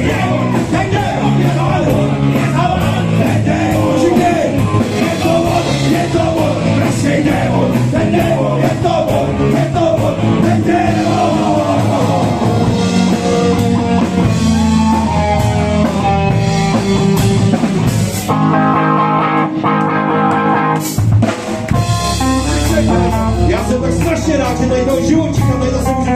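Live rock band playing loudly: drum kit, guitar and a man singing into a microphone. About two-thirds of the way through the drums stop for a few seconds under a held chord, then the full band comes back in.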